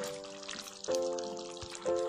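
Soft background music of held chords that change about a second in and again near the end, over faint bubbling of chana dal simmering in the pan.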